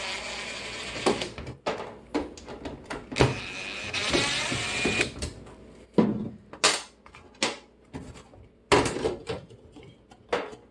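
A DeWalt cordless driver running in two short bursts of a second or two each as it backs screws out of the microwave's sheet-metal blower plate. After them come sharp clicks and knocks of screws and the metal plate being handled.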